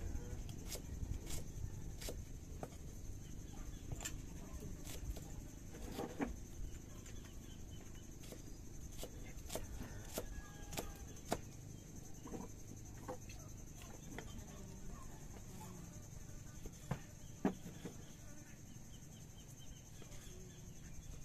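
A kitchen knife chopping shallots and tomato on a wooden chopping board: irregular sharp knocks of the blade on the wood, closer together in the first few seconds and sparser later.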